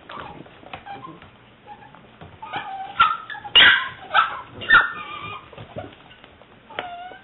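Seven-week-old English Springer Spaniel puppy yipping and whimpering: a cluster of short, high-pitched yips and little barks a few seconds in, loudest around halfway, and a brief whimper near the end.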